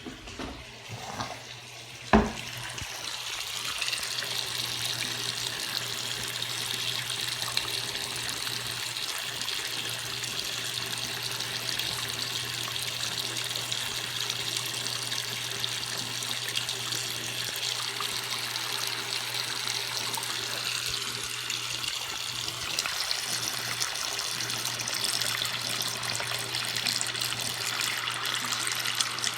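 A sharp knock about two seconds in, then water running from a tap into a sink in a steady stream, with a faint low hum beneath.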